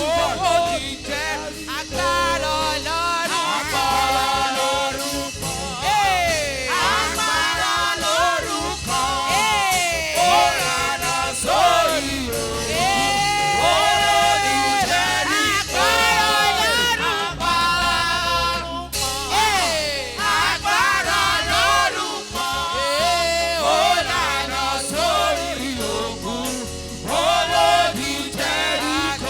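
Gospel singing with live band accompaniment, a lead voice sliding up and down in pitch over a steady bass line.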